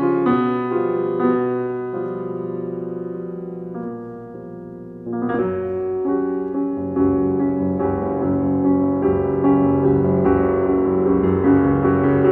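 Piano music: slow sustained chords and melody notes that soften about four seconds in, then swell again with a fuller, fuller-bodied texture.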